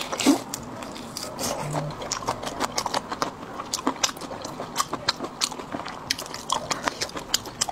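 Close-miked mouth sounds of eating seafood marinated raw in sauce: irregular biting and chewing clicks, several a second, with a louder bite just after the start.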